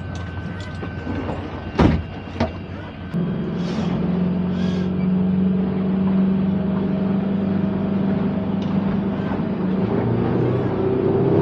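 A motor boat's engine opening up from slow running about three seconds in, then running hard and steady under power as the boat gets under way, with a further rise in engine note near the end as it picks up speed. A couple of sharp knocks come before it opens up.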